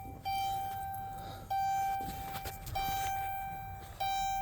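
Electronic chime dinging repeatedly, one bright tone about every second and a quarter, each struck sharply and fading.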